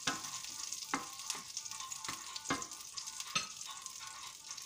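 Butter sizzling as it melts in a non-stick frying pan, with several sharp clicks and pops scattered through, as a wooden spoon stirs it.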